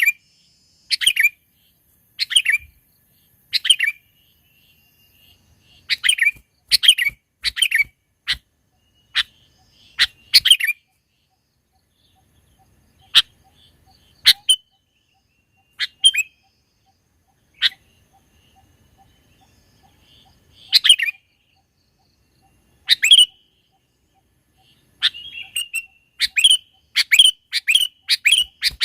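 Sooty-headed bulbul (kutilang) giving short, high calls in irregular bursts every second or two, coming closer together near the end.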